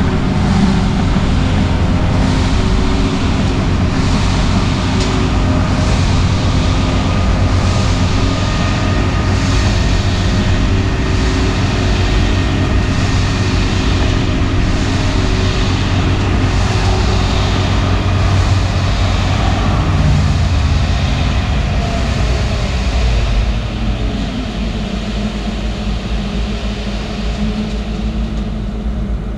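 Excavator's diesel engine running steadily at high revs, then throttling down to a lower, quieter run about three-quarters of the way through.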